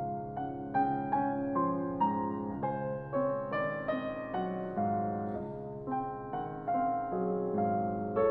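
Background piano music: a gentle, slow melody with sustained chords and a note struck about every half second.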